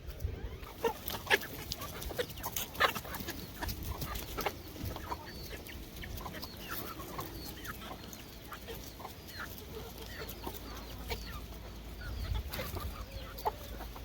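Chickens clucking softly with many short calls, over scattered sharp taps, the loudest of them between about one and three seconds in.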